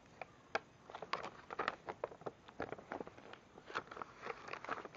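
Paper pages of an instruction manual rustling and crackling as gloved hands handle and turn them: a run of short, irregular crackles that gets busier about a second in.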